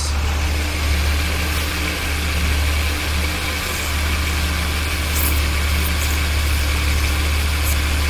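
Ford Taurus 3.0L V6 idling steadily, with a steady hiss of air drawn in through a vacuum leak at a crack at the back of the intake, which leaves the engine running lean.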